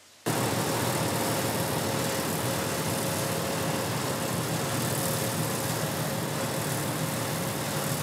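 Rice combine harvester running steadily while cutting: a continuous engine hum with a steady whine over a rushing mechanical noise, cutting in abruptly just at the start.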